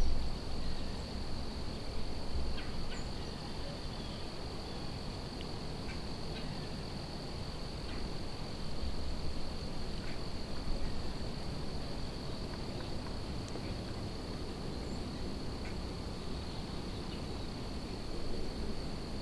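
Evening field ambience: a steady high-pitched insect drone, typical of crickets, with wind rumbling on the microphone and a few faint short chirps.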